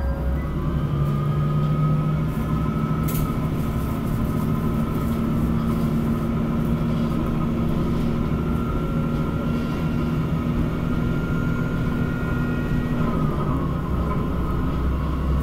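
Diesel railcar heard from inside the car as it pulls away from a station. Its engine runs under power with a steady note, then drops away about 13 seconds in as the power comes off.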